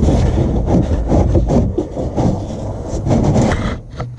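Irregular rubbing and scraping close to the microphone as hands and tools work at the oil filter to unscrew it after it has been broken free.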